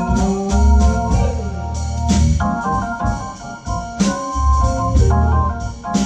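Live blues band playing, led by a Hammond organ's held chords and lines over a low bass line, with drums keeping time and electric guitar.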